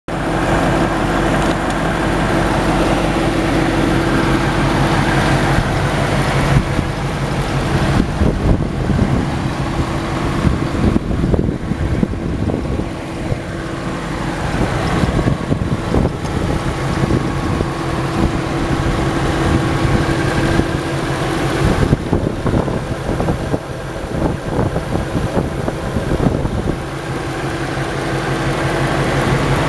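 2013 Ford Mustang Boss 302's 5.0-litre V8 idling steadily with the hood open.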